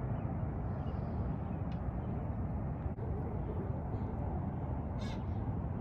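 Steady low outdoor rumble, with a brief high-pitched sound about five seconds in.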